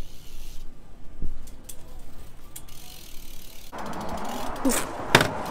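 BMX bike coasting, its rear hub's freewheel ratcheting in faint clicks. A little over halfway through a steady rush of noise comes in, and a single sharp click sounds near the end.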